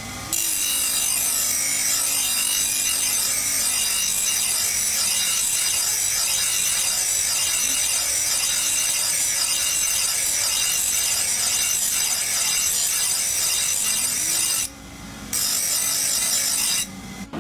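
Steel knife blade being ground on a motor-driven abrasive grinding wheel: a loud, steady hiss of metal against the wheel over a low motor hum. The grinding breaks off briefly about fifteen seconds in and stops near the end as the blade is lifted away.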